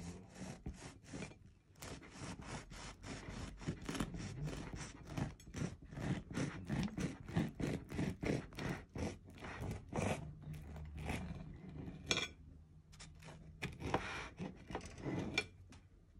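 Knife sawing back and forth through the crust of a loaf of bread, a quick run of rasping, crunchy strokes several times a second, with a short pause about twelve seconds in before a last few strokes.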